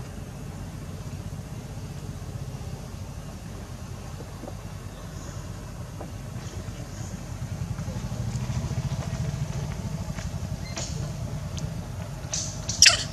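An engine running steadily in the background, getting louder from about eight seconds in, with a short, sharp, high-pitched sound near the end.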